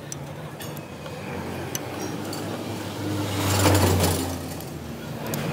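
A motor vehicle passing by: its low engine hum and road noise swell to a peak about three and a half seconds in, then fade away. Earlier there are a few faint clicks from the socket being worked on the motorcycle's oil drain bolt.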